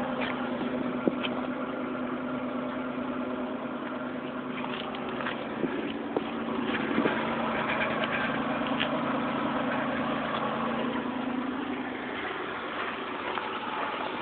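2005 Chevrolet Monte Carlo LT's 3.8-litre 3800 Series II V6 (L36) idling steadily, heard close to the exhaust. Its low hum weakens a little about twelve seconds in, and a few short clicks sound over it.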